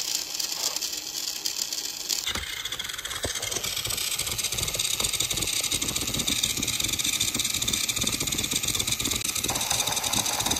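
Battery-powered TOMY Trackmaster toy engine running along plastic track: a steady whir of the small motor, with a rapid rattle of gears and wheels that gets fuller about two seconds in.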